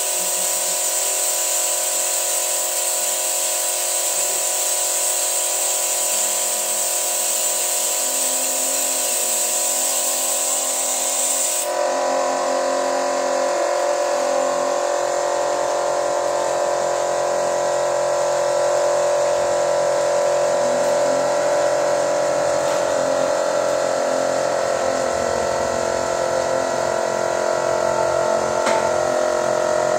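Toyota pickup's petrol engine running steadily with a buzzy whine while carbon cleaner is fed into it from a canister through a hose. A high hiss over the engine cuts off suddenly about 12 seconds in.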